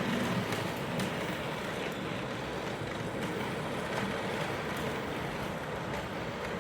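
O-gauge model train running on its track: a steady rumble with a few faint clicks.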